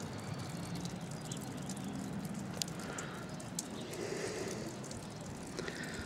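Meltwater dripping from melting icicles on a thawing day: scattered small ticks over a steady low outdoor rumble, with two sharper ticks around the middle.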